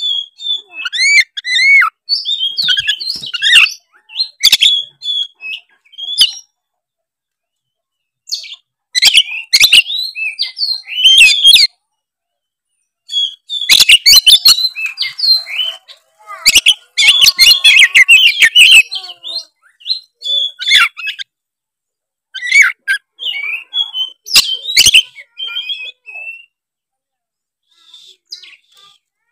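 Oriental magpie-robin in full song: loud phrases of rapid, varied whistles mixed with sharp clicking notes, broken by short pauses of a second or two.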